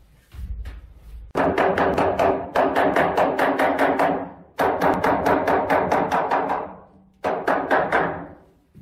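Background music with a fast percussive beat of repeated struck notes, coming in three runs that each fade away.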